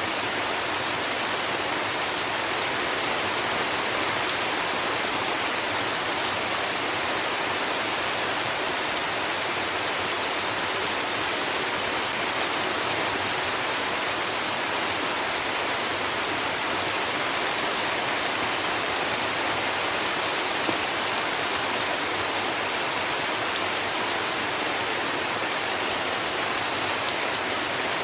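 Heavy rain falling steadily: a dense, even hiss with scattered fine drop ticks and no thunder.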